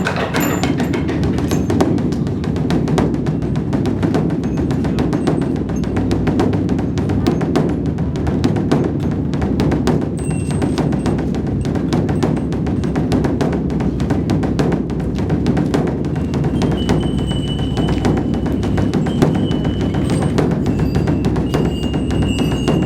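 Large Buddhist dharma drum (beopgo) beaten in a fast, unbroken run of strikes that keeps an even loudness throughout.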